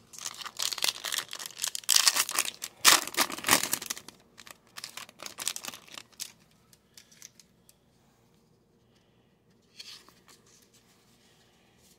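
A hockey card pack's wrapper being torn open and crinkled, a dense crackling rustle that is loudest in the first four seconds and fades to lighter rustles. A brief rustle of the cards being handled comes near the end.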